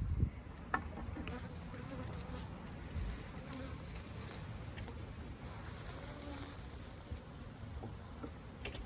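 Honeybee colony buzzing, many bees humming steadily around their exposed brood comb, with a few light clicks of handling.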